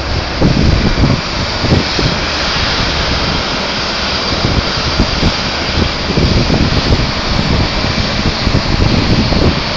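Steady hiss of jet aircraft engines running across the airport apron, with gusts of wind buffeting the phone's microphone.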